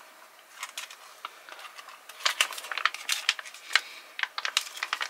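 Foil-laminate MRE entrée pouch crinkling and crackling as it is squeezed and folded by hand to push the food out; irregular crackles, sparse at first, then denser and louder from about two seconds in.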